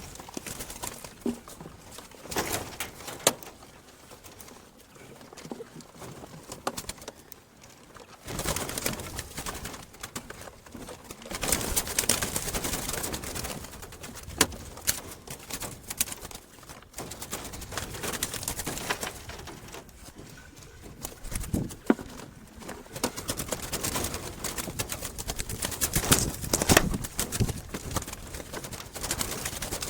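Doves cooing, with irregular bursts of rustling noise and short clicks.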